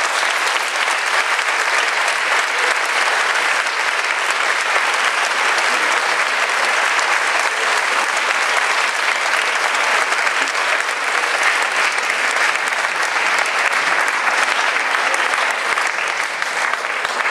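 A large audience applauding: a long, steady round of clapping that begins on the closing thanks and eases off slightly near the end.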